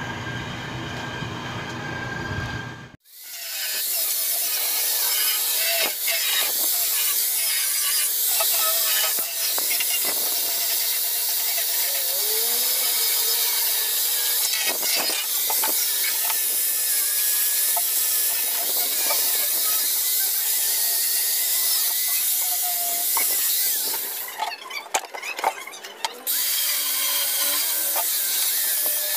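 A deep humming sound cuts off suddenly about three seconds in. It is followed by a power tool running steadily with a high, hissing whine and some squeaks, which breaks off briefly near the end and then resumes.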